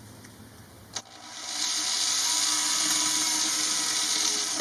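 Power drill boring a hole through the van's sheet-metal body: a click about a second in, then the drill runs steadily with a high hiss of the bit cutting.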